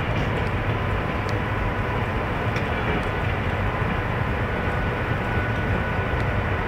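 MÁV V43 electric locomotive running with a steady hum and the rush of its cooling blowers as it pulls a passenger train slowly out of the station, with faint high whines over the hum.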